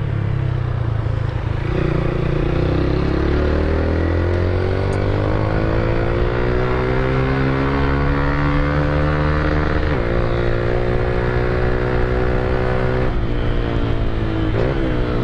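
Motorcycle engine breathing through a Roncar aluminium exhaust, under way: the engine note climbs steadily for several seconds, drops sharply about ten seconds in, then holds steady.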